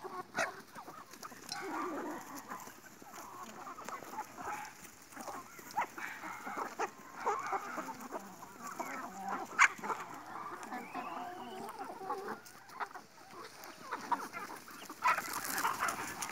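A flock of chickens clucking and calling as they crowd in to feed, with a few sharp taps among them, the loudest about ten seconds in.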